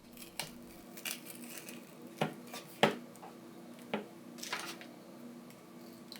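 Plastic back cover of a Samsung Galaxy A21S being pried and pulled away from the phone's frame: a series of small irregular clicks and crackles from the plastic and its adhesive, the sharpest about three seconds in.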